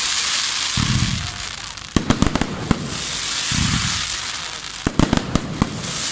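Fireworks display: clusters of sharp bangs about two seconds in and again about five seconds in, with loud crackling hiss in between.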